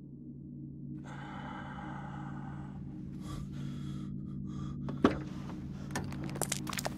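A low, steady drone of several held tones, slowly growing louder. About a second in, a man takes a sharp breath. About five seconds in, a car door clicks open, followed by a few smaller clicks and scuffs as he steps out onto the road.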